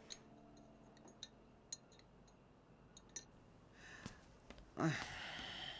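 A few faint, light clinks, like cutlery on plates at a dinner table, spread over the first three seconds, then a short rustling burst and soft hiss near the end.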